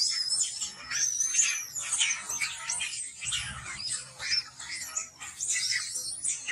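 High-pitched animal calls: many short chirps and squeaks overlapping, with a longer whistle-like call that rises and then holds in the first second and a half.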